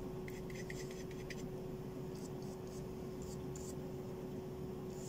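Semi-dry wide bristle brush stroking gouache onto paper, a soft scratchy brushing in quick runs of short strokes with short pauses between them. A steady low hum runs underneath.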